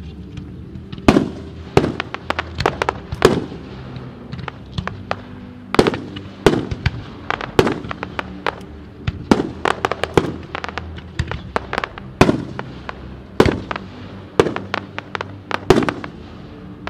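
Fireworks going off in an irregular run of sharp bangs and crackles, a dozen or so loud ones among many smaller pops. Music from the pyromusical plays underneath.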